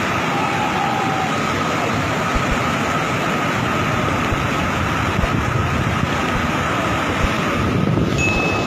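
Muddy flash-flood torrent rushing down a street, a steady roar of water with a faint steady tone underneath.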